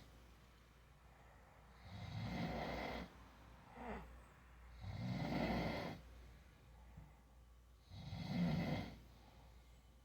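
A sleeping man snoring: three long, rough snores about three seconds apart, with a brief sound falling in pitch between the first two.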